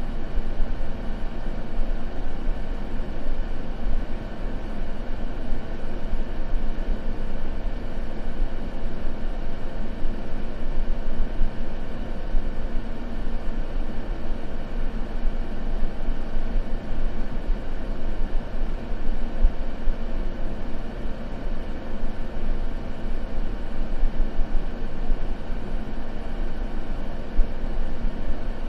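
Continuous sleep white noise, steady and unchanging, deep with little high hiss.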